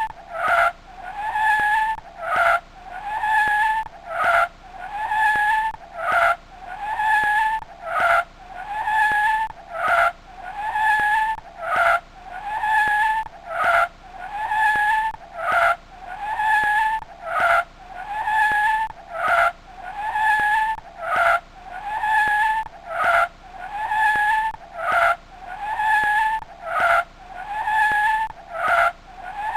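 A high squeal repeating steadily about once a second, each one rising slightly in pitch before a short break.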